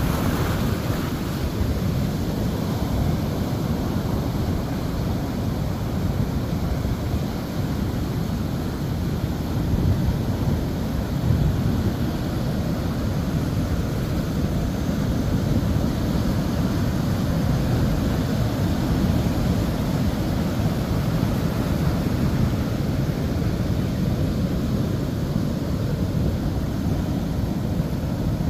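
Ocean surf breaking and washing around a concrete beach groin, a steady rush of water, with wind buffeting the microphone.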